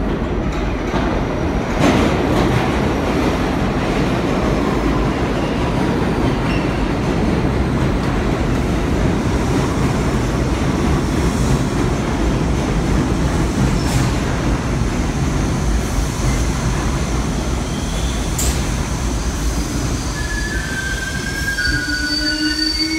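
R62A subway train entering the station and running along the platform: a loud, steady rumble of steel wheels on the rails, with a few sharp clicks. Near the end, high squeals rise as the train slows.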